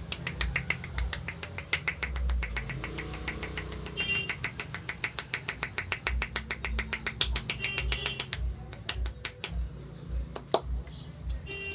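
Rapid, even clicks or taps, about six or seven a second, over background music with a pulsing bass. The clicks stop about eight seconds in, and a single sharp crack follows near the end.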